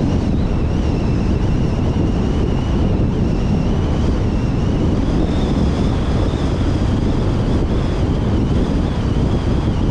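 Steady road noise from a car travelling at motorway speed: a deep rumble of tyres and wind, with wind buffeting the microphone and a faint high whine that drifts slightly in pitch.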